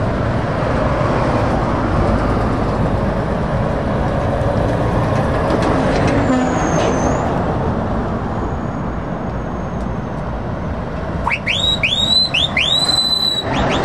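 A convoy of lorries and cars driving past at road speed, a steady rush of engines and tyres. Near the end comes a quick run of short, high whistle-like tones, each rising and then holding briefly.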